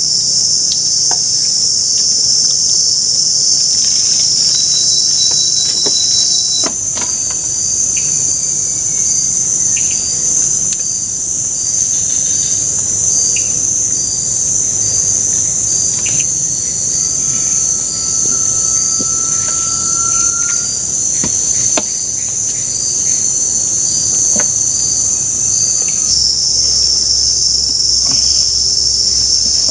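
Loud, steady high-pitched drone of a forest insect chorus, made of many fast, evenly pulsing calls. A second pulsing call joins about a quarter of the way in and drops out near the end. A faint, long whistle rises slightly in the middle.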